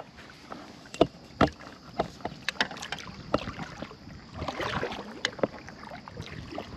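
Irregular knocks and clicks of gear being handled in a fishing kayak, with a short hissing rustle about two-thirds of the way through.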